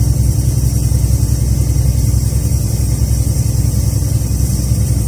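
Steady low engine and road rumble of a moving truck, heard from inside the cab, with a steady high hiss from an electric pressure cooker letting off steam as it cooks beans.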